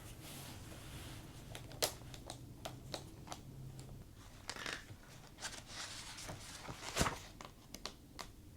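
Soft handling noises in a quiet small room: scattered light clicks, taps and rustles, with one sharper knock about seven seconds in.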